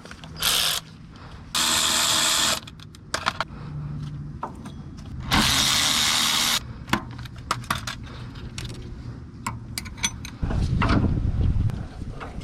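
A power tool runs in three short bursts, the longest just over a second, spinning bolts off while a front brake and wheel hub are taken apart. Light clicks and clanks of tool handling come between the bursts, and a low rumbling noise follows near the end.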